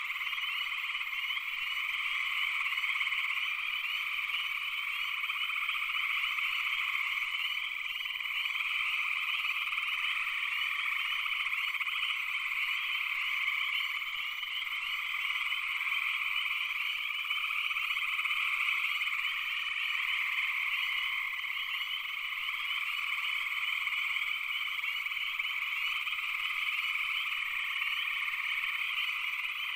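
A dense chorus of many frogs calling at once, steady and unbroken, in a higher and a lower band of calls.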